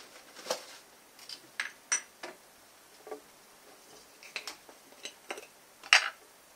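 Scattered light clinks and knocks of kitchen containers and utensils being handled on a countertop, about ten in all, the loudest near the end as a glass bottle and a tin can are brought to the counter.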